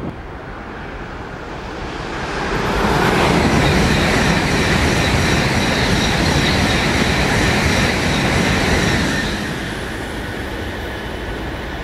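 Tokaido Shinkansen bullet train passing through the station at high speed without stopping. A rushing noise builds over the first few seconds, holds loud for about six seconds with a high whine over it, then drops away as the train clears.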